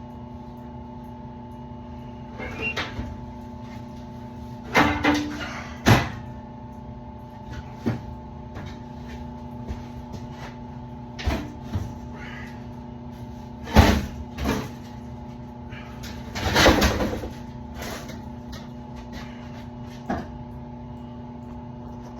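A steady machine hum runs throughout. Irregular knocks, clicks and short rattling clatters break in, as of metal parts and tools being handled; the loudest come around 5, 6, 14 and 17 seconds in.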